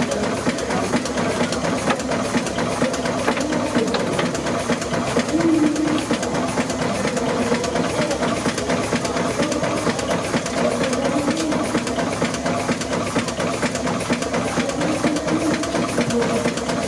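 Steam engine running steadily with a fast, even beat.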